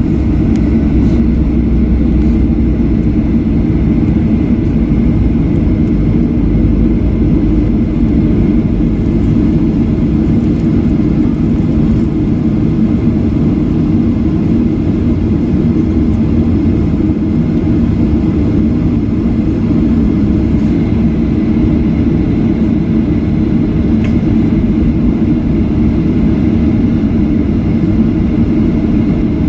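Steady low rumble inside the cabin of a jet airliner taxiing after landing.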